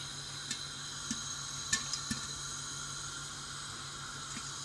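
Popcorn kernels popping in a pot of hot oil on the stove: about four scattered, sharp pops in the first two seconds over a steady hiss. The popping is still at its slow early stage.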